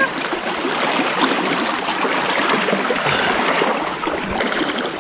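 Shallow water sloshing and splashing steadily around men wading and a small wooden outrigger boat moving through the water.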